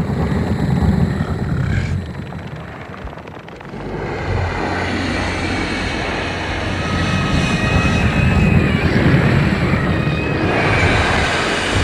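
Monster roar sound effect for a giant sea-worm creature: a long, rumbling, growling roar. It sinks about two seconds in and swells back from about four seconds, holding loud to the end with a brighter, shriller edge in its last couple of seconds.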